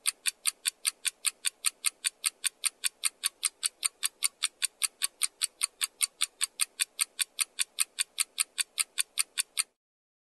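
Ticking clock sound effect used as a task timer: rapid, even, high ticks about five a second, which stop abruptly near the end.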